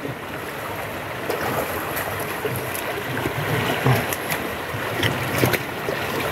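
Fast, shallow river current rushing, with irregular splashes of water around legs wading through it.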